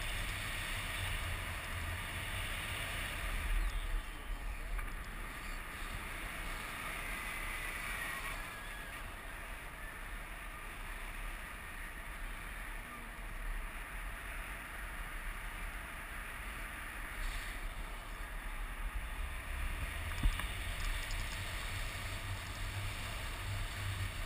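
Wind rushing over the microphone of a camera carried in flight under a tandem paraglider: a steady low rumble with a hiss, stronger at the start and again in the last few seconds.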